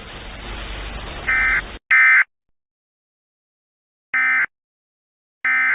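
Emergency Alert System end-of-message data tones: four short, harsh, buzzing digital bursts that mark the end of the alert. The first two come close together about a second and a half in, over faint hiss. The others follow at gaps of about a second and a half in dead silence.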